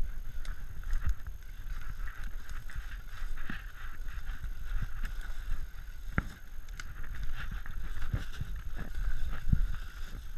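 Footsteps crunching and shuffling through dry fallen leaves and twigs, with the body-worn action camera rubbing and bumping against clothing and gear as it is carried. The knocks come at irregular intervals over a low rumble, with a faint steady high drone behind.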